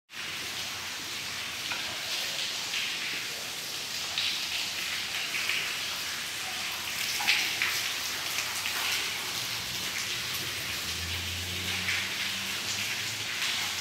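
Water raining down indoors from a leak overhead, a steady patter of drops splashing onto a flooded floor. A faint low hum joins in about eleven seconds in.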